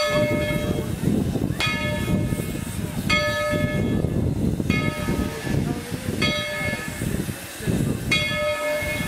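Steam locomotive bell ringing steadily, a stroke about every one and a half seconds, six times, over a continuous low rumble of steam and wind.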